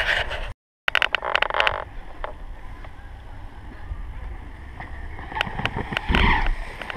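Mountain bike tyres rolling on dirt with wind noise on a camera microphone, cut off abruptly just after the start. After that comes quieter outdoor background with scattered clicks. About five and a half seconds in, a louder rush of bike noise comes as a rider rolls past near the camera.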